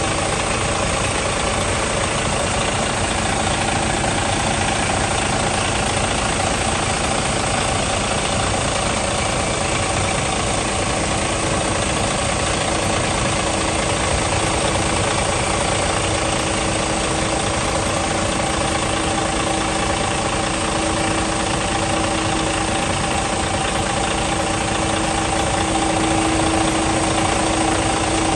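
Mercedes-Benz Travego coach's diesel engine idling steadily, close up at the open engine bay, with a constant whine running over the engine note.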